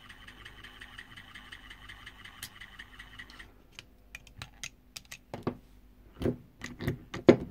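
EBM-papst Q-series shaded-pole fan motor running badly with a steady mains hum and a high whine, which the owner puts down to a worn sleeve bearing; the whine cuts off about three and a half seconds in. Scattered clicks and a few knocks follow as the motor shaft is handled.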